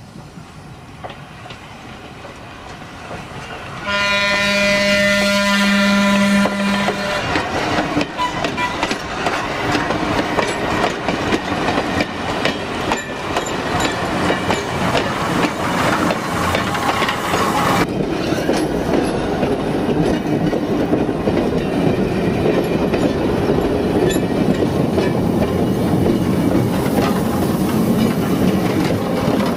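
Sacramento Northern electric interurban train approaching and passing close. A single horn blast of about three seconds sounds a few seconds in, then the cars roll by with rising wheel noise and a steady clickety-clack of wheels over rail joints.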